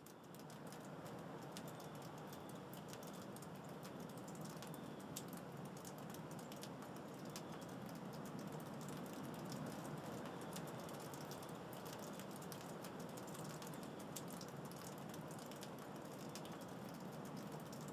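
Water dripping from melting icicles and snow: an irregular patter of small ticks over a steady low hiss.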